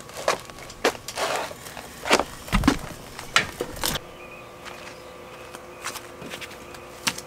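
Blue painter's tape being pulled off the roll and pressed along the edge of a riveted aluminium jon boat hull: a run of sharp clicks and rasps with a dull knock about two and a half seconds in, then only faint ticks.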